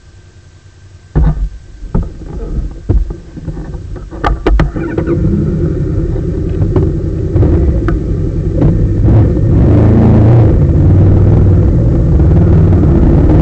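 Motorcycle engine starting about a second in, then running with several sharp knocks and clunks as the bike is handled and put in gear. It then pulls away and rides off, engine and wind noise growing louder and holding steady near the end.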